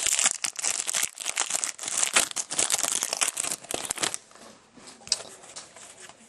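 Clear plastic trading-card pack wrapper crinkling as it is pulled open. The crinkling is dense for about four seconds, then gives way to quieter rustling and clicks as the cards are handled.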